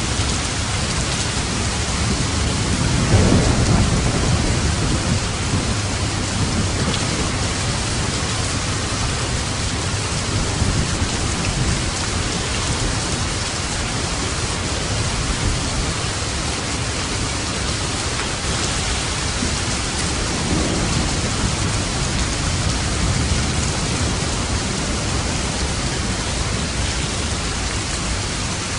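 Steady heavy rain falling on a roof, with a rumble of thunder swelling about three seconds in and a fainter rumble near two-thirds of the way through.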